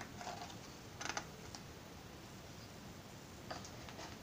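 Page of a picture book being turned by hand: a few faint, short paper rustles and soft clicks, about a second in and again near the end.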